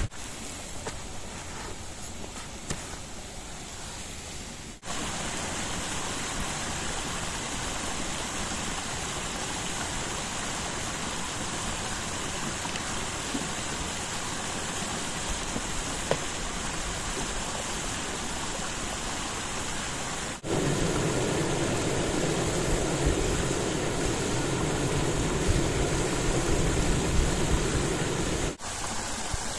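Small mountain stream running, a steady rush of water. The sound changes abruptly about five seconds in and again about twenty seconds in, where it becomes fuller and deeper, before changing again near the end.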